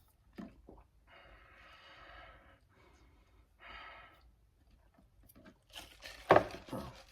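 Close-up eating noises: chewing and breathing through the nose, with two short stretches of rustling or slurping in the first half and a loud knock about six seconds in.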